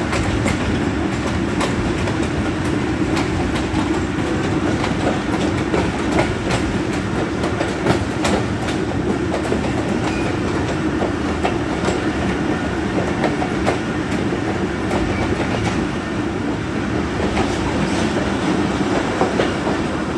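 A passenger train carriage running with a steady rumble, heard from inside the coach, with its wheels clicking over the rail joints at irregular intervals.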